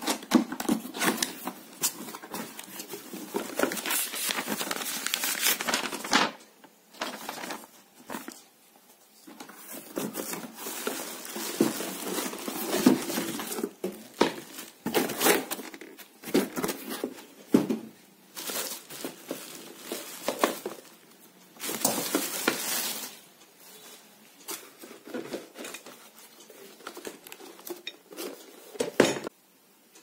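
Unpacking a drip coffee maker by hand: cardboard box flaps and plastic wrapping rustling and crinkling in irregular bursts, with occasional knocks and clinks as the parts are handled and set down. There are short quieter pauses between bursts.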